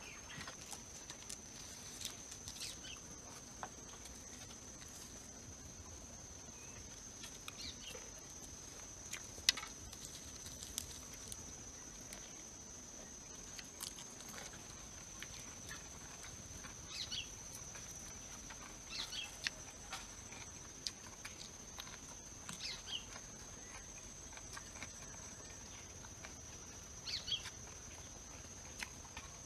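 Quiet outdoor rural ambience: a steady high-pitched insect drone with short bird chirps every few seconds, and scattered small clicks and taps.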